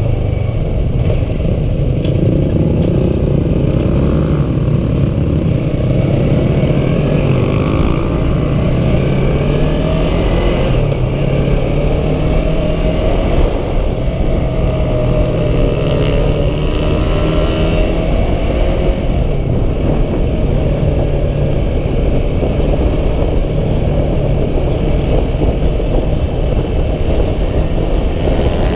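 Yamaha R3 motorcycle's parallel-twin engine running on the move, its pitch rising and falling repeatedly with throttle and gear changes, over a steady low rumble.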